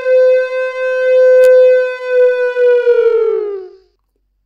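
A man's voice, processed by a voice filter, holding one long, loud, steady note that sags in pitch and dies away about three and a half seconds in. A single sharp click about a second and a half in.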